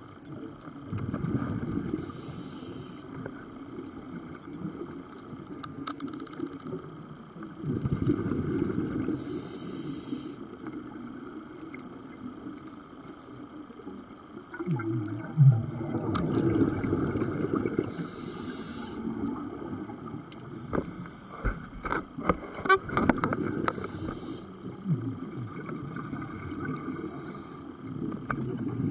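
Scuba regulator breathing underwater: a hiss of inhalation about every eight seconds, each followed by the low gurgling rumble of exhaled bubbles. A few sharp clicks come a little past the middle.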